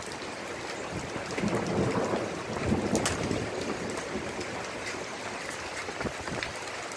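Steady rain pouring down onto a wooden deck and the porch roof overhead, with a few sharp taps standing out, the clearest about three seconds in.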